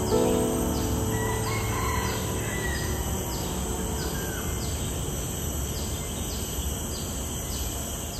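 Outdoor ambience: a steady background hiss with a high chirp repeating about every 0.6 seconds and a couple of faint bird calls in the first few seconds. The end of background music fades out just at the start.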